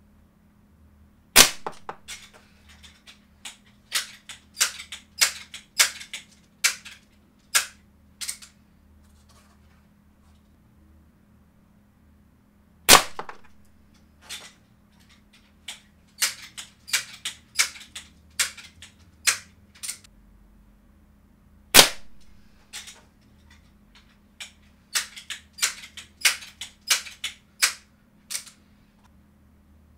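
Crosman 1377c .177 multi-pump air pistol firing three times, each shot a single sharp crack, about ten seconds apart. Between the shots come runs of lighter clacks as the pump arm is worked through about five or six strokes and the bolt is cycled to load the next pellet.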